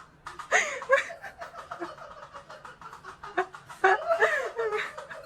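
A person laughing, in a few short bouts with pauses between.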